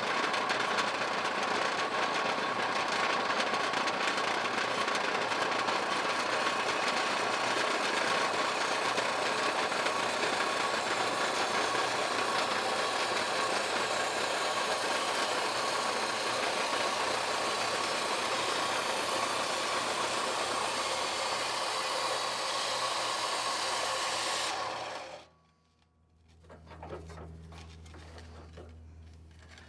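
Power saw running steadily with a constant whine, cutting soft firebrick, then switched off about 25 seconds in; a faint low hum follows.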